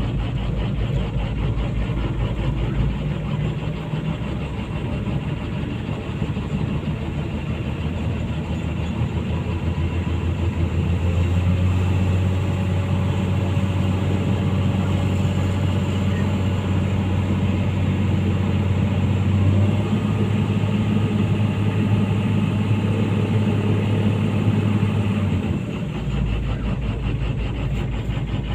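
Komatsu PC200-8 excavator's six-cylinder common-rail diesel engine running steadily, its note shifting a few times as it is put through a cylinder cut-out test.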